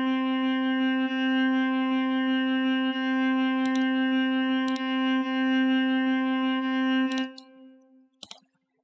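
FL Studio's Morphine synthesizer playing an SFX preset: one steady held electronic note that stops about seven seconds in and fades away within a second. A few mouse clicks sound during it.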